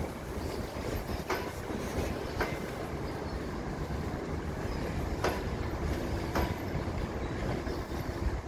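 Passenger coaches of an arriving express train rolling along station tracks, a steady rumble broken by four sharp, irregularly spaced wheel clacks over rail joints. A faint steady whine comes in after the middle.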